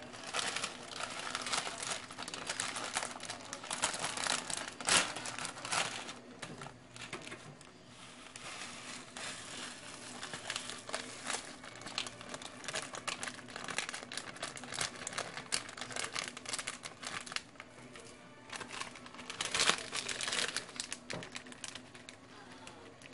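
Plastic instant-noodle wrapper crinkling and rustling as the pack is handled and its noodles tipped into a frying pan, busiest in the first few seconds and again near the end.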